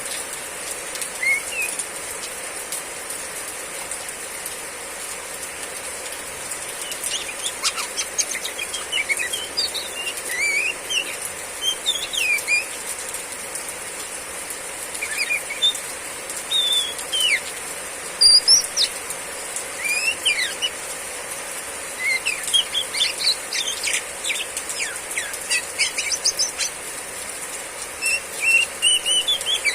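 Female Oriental magpie-robin giving a run of short chirps and quick rising and falling whistled notes at irregular intervals, over the steady hiss of heavy rain.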